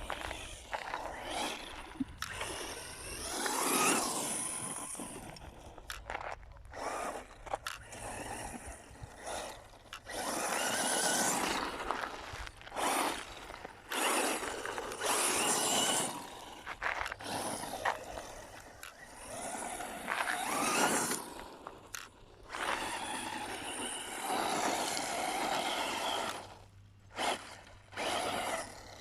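Quanum Vandal brushless electric RC buggy running on loose dirt, its motor whine rising and falling in repeated bursts as it accelerates and backs off, over a rough scraping noise.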